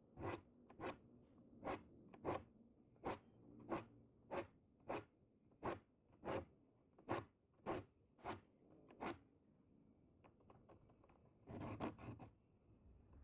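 Diamond file rasping across the teeth of a Japanese ryoba saw in short, regular strokes, about three every two seconds, then a pause and a longer, grittier scrape near the end.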